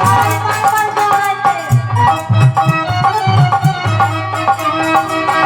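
Instrumental interlude of Indian folk devotional music: a melody instrument plays over a hand drum beat and steady rattling percussion.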